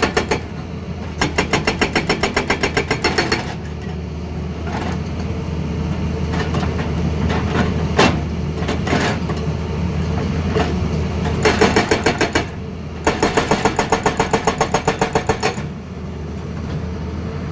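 Excavator-mounted hydraulic breaker hammering in three bursts of rapid blows, about eight a second, each lasting one to three seconds, over the steady running of the excavator's engine. One sharp knock falls between the bursts.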